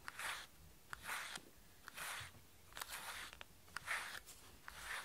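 A grooming brush being stroked through a cat's fur: repeated short brushing rasps, a little over one stroke a second.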